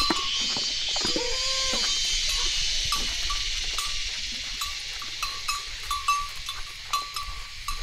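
A bell on a walking elephant clinking in short, uneven strokes, one or two a second, over a steady high buzz of forest insects.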